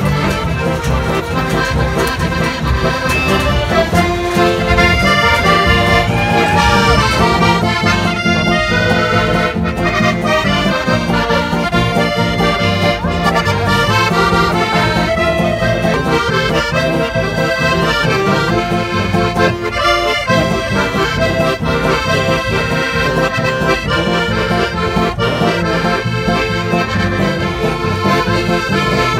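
Traditional folk instrumental music.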